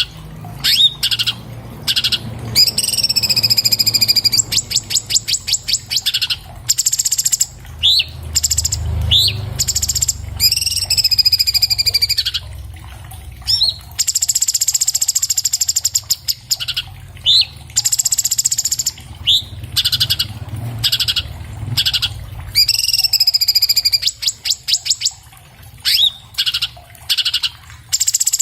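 Orange-bellied leafbird singing continuously: a rapid, varied song of clear whistled notes, short upward-slurred notes and fast rattling trills, with barely a pause.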